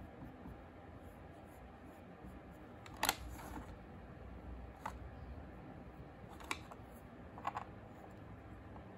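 Quiet handling sounds of clay work: a few short clicks and taps as a sculpting tool and pieces of air-dry clay meet the plastic tray, the loudest about three seconds in, over faint room hiss.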